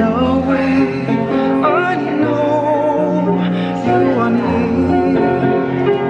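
A slow hymn sung with vibrato over piano accompaniment, the singer and the piano holding long notes.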